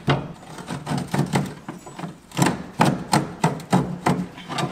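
Hand tools knocking and clicking against the front coil-spring suspension of an AMC Eagle while a lift kit is fitted: a run of sharp, uneven knocks, about two or three a second, with scraping between them.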